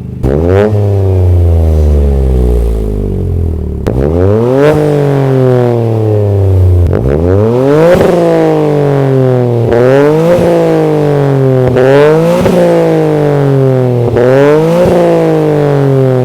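Toyota GR Corolla's turbocharged 1.6-litre three-cylinder revving through a SXTH Element dual exhaust with a resonated mid-pipe. Three long rises in revs that each fall away slowly, then a run of quicker rev blips about once a second from about halfway in.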